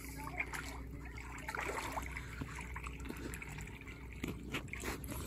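Shallow seawater trickling, with a few light splashes scattered through.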